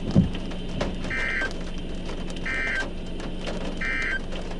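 Three short electronic beeps, evenly spaced about a second and a half apart, over a steady low hum and scattered light ticks.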